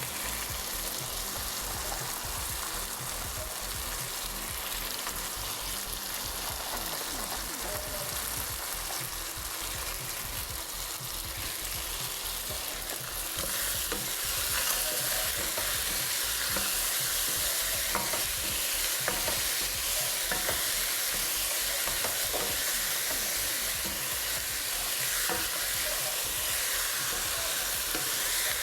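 Food sizzling and frying in a hot pan, a steady hiss that grows louder about halfway through, with a few faint clicks.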